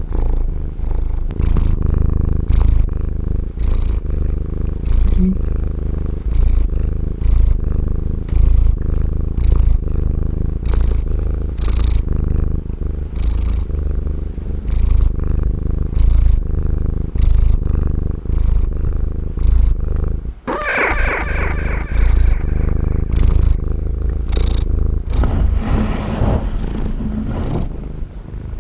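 Calico cat purring loudly and steadily right at a microphone, pulsing with each breath, heard through an echo effect. About twenty seconds in there is a short meow-like call, and a fainter one follows near the end.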